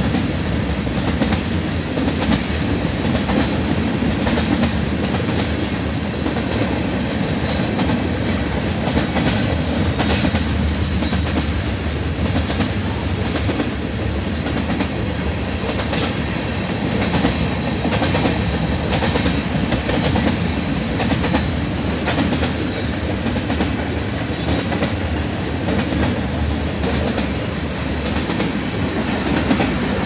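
Freight cars of a passing manifest train, covered hoppers and tank cars, rolling steadily over the rails with a continuous rumble and wheel clatter. Brief high-pitched wheel squeaks and clicks come now and then, most of them in the middle.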